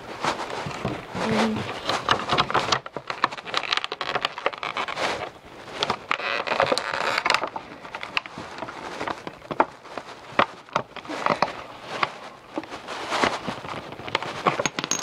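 Trading-card box packaging being handled: irregular rustling with scattered small clicks and taps as contents are pulled out.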